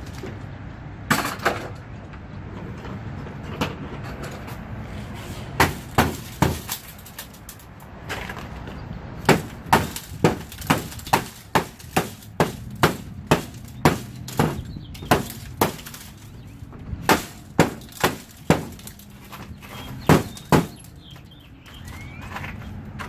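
Sharp knocks and clinks of broken glass from a smashed double-pane storefront unit being knocked and tapped out of its frame, a few scattered strikes and then a quick run of about two a second, each with a short ringing tail.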